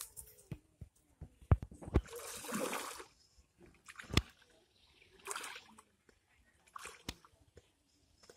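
A person wading through shallow pond water, legs sloshing and splashing in several separate bursts, with a few sharp knocks in the first half.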